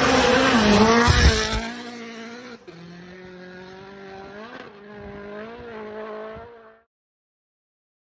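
A rally car passes at speed, loudest in the first second and a half. Its engine note then fades into the distance, dipping and rising a few times, and cuts off suddenly near the end.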